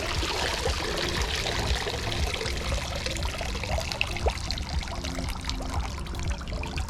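Water pouring and trickling out of a robotic pool cleaner as it is held up out of the pool and drains.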